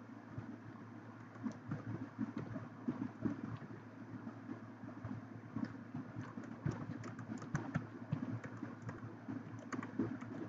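Typing on a computer keyboard: quick, irregular key clicks, thicker in bursts, over a steady low hum.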